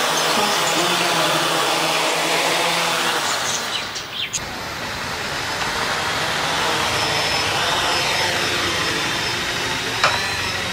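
Homemade quadcopter's four electric motors and propellers running, a steady dense whirring buzz as it lifts off and hovers. The sound dips briefly about four seconds in, then carries on; a short click near the end.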